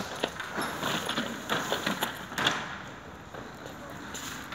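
Small metal screws and office-chair fittings being handled, giving a run of short clicks and rattles over the first two and a half seconds, then quieter.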